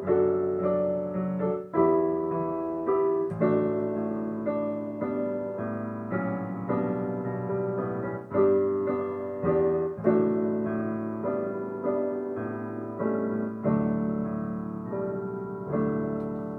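Digital piano playing a slow hymn in full chords, a new chord about once a second. Near the end a chord is held and begins to fade.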